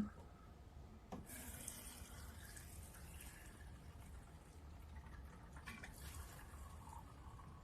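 Faint trickle of gasoline, with a sharp click at the start and another about a second in.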